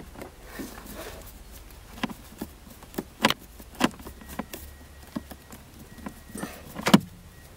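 Scattered clicks and light knocks from a screwdriver and fingers working a Phillips-head screw out of plastic dashboard trim, with the loudest knock about a second before the end.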